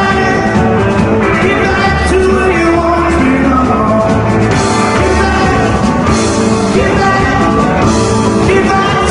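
Rock music with a singing voice, at a steady loudness.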